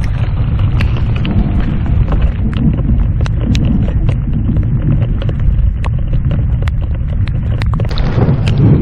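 Thunderstorm rain and wind on a boat-mounted camera: a steady low rumble of wind on the microphone, with raindrops striking the camera as scattered sharp ticks.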